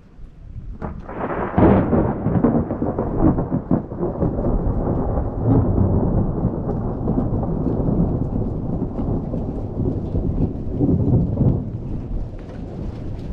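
Thunder following a lightning strike: a sharp rise about a second in, then a long rolling rumble with a second swell near the end before it eases off.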